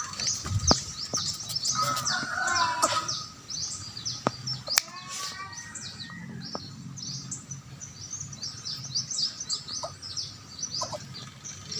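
Young birds of prey chirping constantly while being hand-fed, in quick high-pitched chirps that fall in pitch, typical of chicks begging for food. A few sharp clicks sound in the first half.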